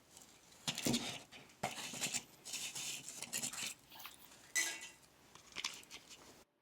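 Hand sanding on a foam surfboard blank: short, irregular scraping strokes with a few light clicks.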